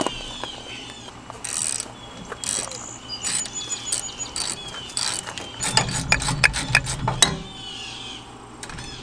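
Ratchet wrench clicking as it backs out bolts: scattered clicks at first, then a fast run of clicks with a low rumble about two-thirds of the way through.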